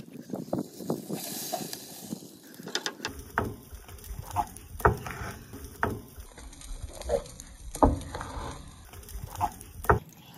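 Scattered sharp knocks and clatter from a wooden cutting board and steaks being handled on a smoker's side shelf. The board nearly tips over.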